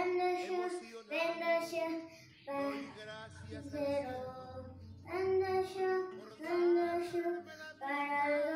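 A girl singing a Spanish street vendor's cry (pregón), in a run of short phrases with steady held notes and brief pauses between them.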